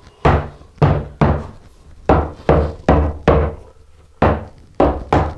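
Rubber mallet knocking a 2x4 board down onto a packed sand-mix shower pan: about ten sharp knocks in uneven groups, each with a low thud. The board is being tapped down to check that the mortar bed is flat and not gapped underneath it.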